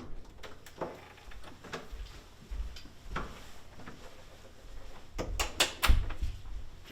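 A few scattered faint knocks and clicks, with a quick cluster of louder knocks about five to six seconds in.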